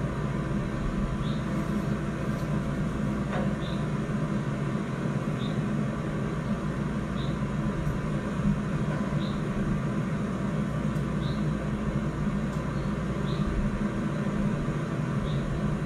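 Quadcopter camera drone hovering, a steady hum, with faint short high chirps about every two seconds.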